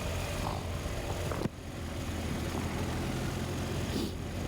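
BMW R 1250 GS boxer-twin engine running on the move, with road and wind noise, heard through a microphone inside the rider's helmet. The sound drops suddenly about a second and a half in, then builds back to the same steady level.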